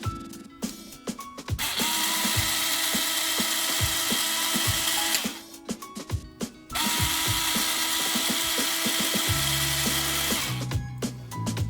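A power drill running twice, each time for about three and a half seconds, over background music with a steady beat.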